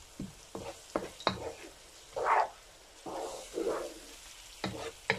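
Wooden spatula stirring and scraping minced chicken and onions frying in a non-stick pan: irregular scrapes and taps, a few longer swishes, over a light sizzle as the keema is fried through.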